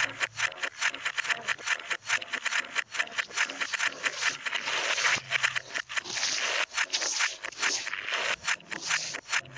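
Sound track played backwards: a dense, choppy hiss broken by many rapid scraping strokes.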